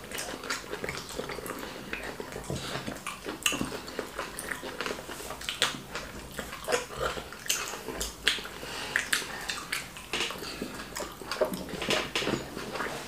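Close-up eating sounds of wheat fufu and ogbono soup: wet smacking, chewing and swallowing in short irregular clicks.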